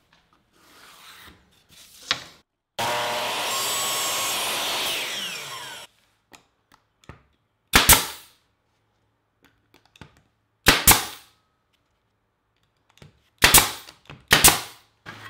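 Pneumatic nailer firing four times into wooden fence strips on an MDF base, each shot a sharp double crack, a few seconds apart. Before the shots there is a loud, steady, noisy sound lasting about three seconds.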